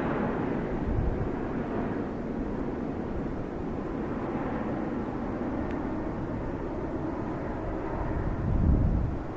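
Steady distant engine rumble outdoors, easing off slowly, with a gust of wind buffeting the microphone near the end.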